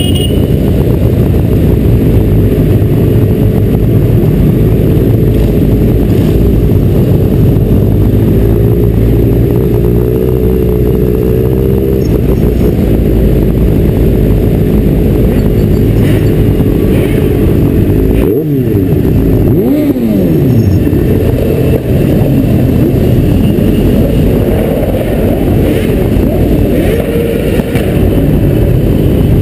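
Several motorcycle engines running as a group rides along at road speed, picked up by a helmet-mounted camera. About eighteen seconds in, the engine pitch drops and then climbs again.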